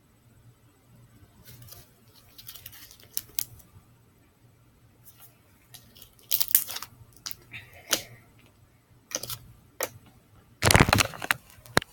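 Large sequin-filled slime being squeezed and stretched by hand, giving scattered sticky clicks and pops, with a louder burst of squishing in the last second.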